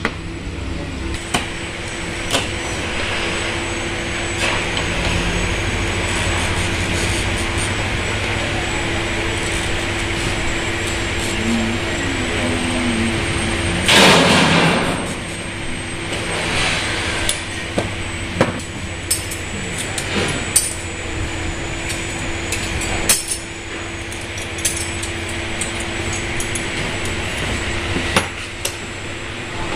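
Hand glass cutter scoring a sheet of stained glass: a short rasping scratch about halfway through, with a fainter one a few seconds later. Scattered clinks and taps of glass pieces being handled on the worktable, over a steady hum.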